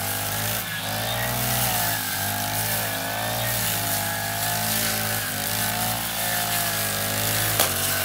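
Petrol brush cutter running at high speed, its engine pitch rising and falling slightly as the trimmer head cuts through tall grass and weeds. A single sharp tick sounds near the end.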